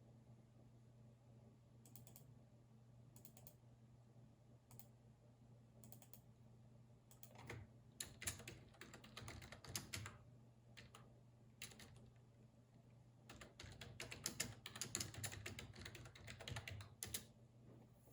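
Computer keyboard typing: a few scattered single clicks, then two quick runs of keystrokes, the second longer, over a steady low hum.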